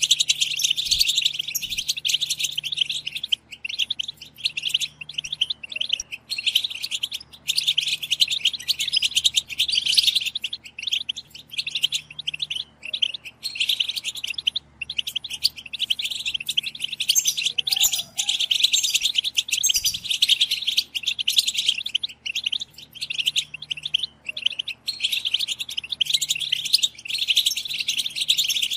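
A group of European goldfinches chattering: rapid, overlapping high twittering calls, nearly continuous with brief pauses every few seconds.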